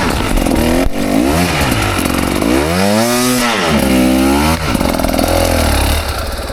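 KTM 300 XC two-stroke dirt bike engine revving up and down under throttle, with about three big swells in pitch, the largest about three seconds in. The sound falls away near the end.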